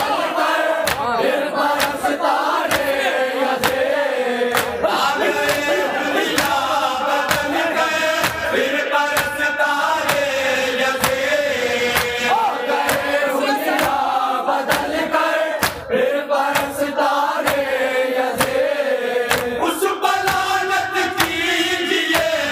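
A group of men chanting an Urdu salam, a Shia mourning lament, in unison, with a steady beat of sharp strikes throughout from the mourners' chest-beating (matam).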